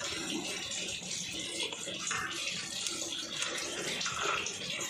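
Soft, continuous scraping and rustling of cooked rice being scooped by hand out of a clay pot and dropped onto a steel plate.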